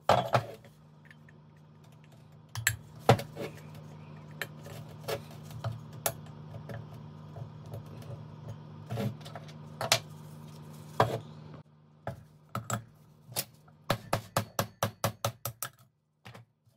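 Metal clicks and clinks of circlip pliers working the bearing circlip out of a Denso smog pump housing, then a fast run of about a dozen sharp knocks near the end as the bearing is driven out of the housing over a wooden block. A steady low hum stops about two-thirds of the way through.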